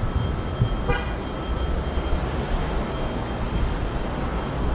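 City street traffic noise: a steady rumble of passing vehicles, with a brief high-pitched tone about a second in.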